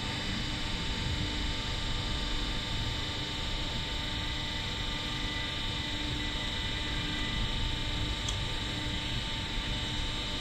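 Steady machine hum, several even tones over a noisy hiss, with a faint click about eight seconds in.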